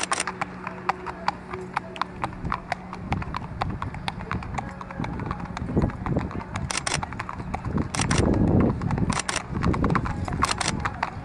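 Hooves of Arabian racehorses clip-clopping on a paved path as they are led at a walk, an irregular run of sharp hoof strikes. A burst of low rumbling noise comes about eight seconds in.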